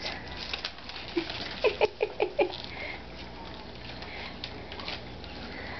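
Old English Sheepdog puppies eating kibble from a metal pan: many scattered small crunches and clicks as they chew and nose the food.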